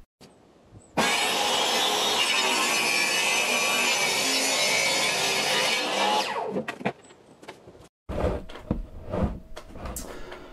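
Power saw cutting through a thick sheet of MDF: a steady, loud cut starts abruptly about a second in, runs for about five seconds and then winds down. After that come a few scattered knocks and handling sounds.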